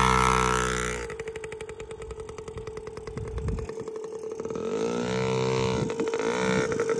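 Yamaha PW50 mini dirt bike's small two-stroke single-cylinder engine revving as the bike pulls away. It fades as the bike rides off, then grows louder again with rising revs from about four and a half seconds in as it comes back.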